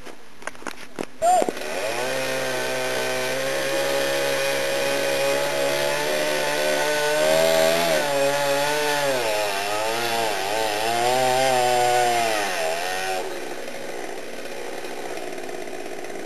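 Two-stroke chainsaw running at high revs, coming in after a few clicks and a sharp knock. In its second half the pitch wavers and sags repeatedly as the chain bites into the wood, and it cuts off suddenly about thirteen seconds in.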